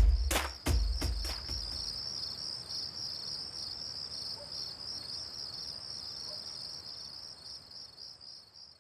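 Crickets chirping in a steady, pulsing high trill that slowly fades towards the end. The last few drum beats of the music die away in the first second and a half.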